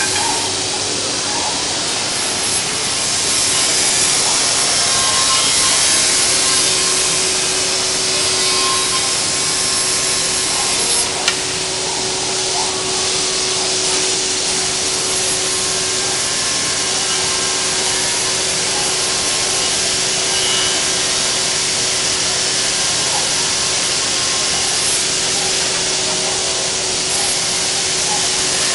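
Bacci Master-Win 5-axis CNC machining centre cutting solid wood: a steady, loud rushing noise of spindle and cutter, with a held tone through the middle stretch and a single sharp click about eleven seconds in.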